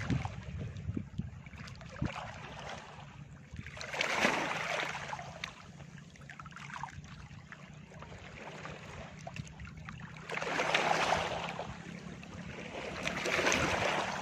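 Gentle sea waves washing onto a beach, three swelling rushes of surf that rise and fade, over a steady low hum.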